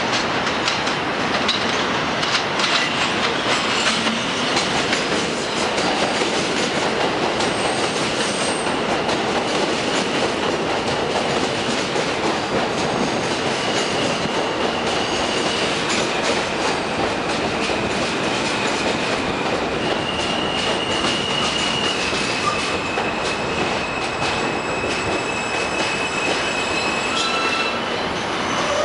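Alstom-built R160 subway train running into an elevated station: a steady rumble and clatter of wheels over the rail joints, with high wheel squeal from the curve coming and going several times, longest in the last third.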